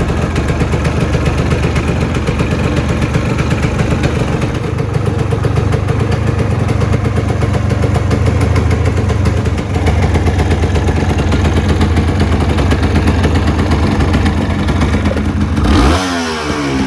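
Honda CRM250R's two-stroke single-cylinder engine idling steadily through a PRO SKILL OB-M1 aftermarket aluminium silencer. The engine is revved briefly near the end, its pitch sweeping up and back down.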